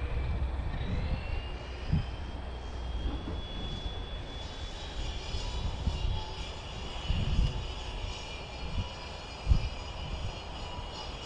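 Wind buffeting the microphone in gusts, with sudden low thumps. Under it runs a steady high-pitched motor or engine whine that rises in pitch over the first couple of seconds and then holds.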